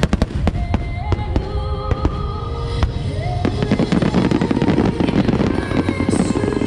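A barrage of aerial firework shells bursting: a quick run of sharp bangs in the first second or so, then a dense crackling from about halfway through. A song plays underneath.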